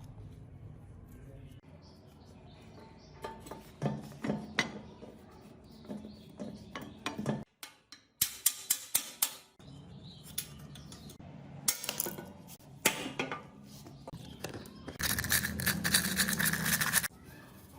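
Metal tools and parts clinking and tapping during motorcycle repair work. There is a quick run of clicks about eight seconds in, and a dense rattling noise lasting about two seconds near the end.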